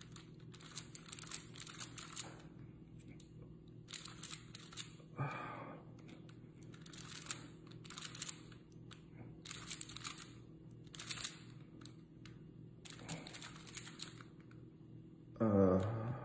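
Plastic Rubik's Cubes being turned fast by hand: bursts of clicking and rattling of the layers, one after another with short pauses. A brief voice sound about five seconds in and a louder one near the end.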